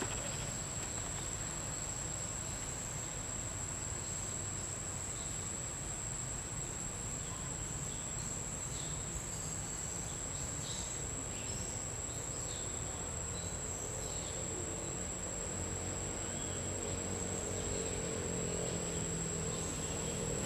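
Insects in the forest giving one steady, high-pitched drone without a break, over a low background rumble.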